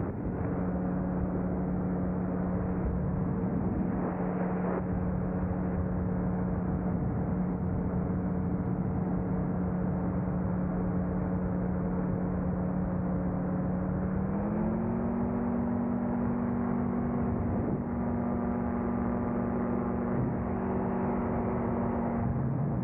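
Engine of a powered glider running steadily in flight, with wind rush over the aircraft. About fourteen seconds in, the engine note steps up a little in pitch and holds at the higher speed.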